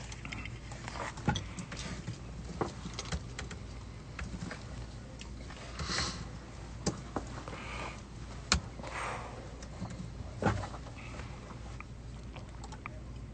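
A man exhaling smoke in a few soft breathy puffs, among scattered light clicks and taps over a low steady hum.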